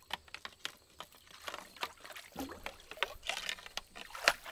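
A long-handled landing net being swept through shallow pond water: repeated splashing and sloshing with dripping water, and one louder sharp hit near the end.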